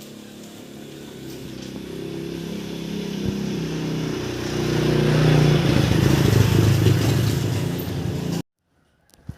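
Motorcycle engine running and revving. Its pitch steps up and down as it grows steadily louder, then it cuts off suddenly about eight seconds in.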